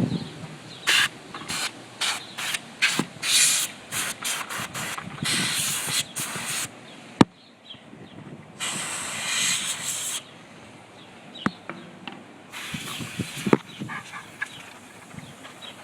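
Compressed air hissing out of a garden pump's nozzle in bursts, blowing dust off a computer motherboard: a quick run of short puffs, then several longer blasts. A sharp click about seven seconds in.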